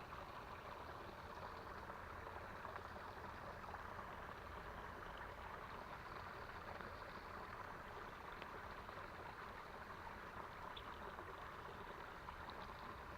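Faint, steady running water of a small creek, with a few light ticks in the last few seconds.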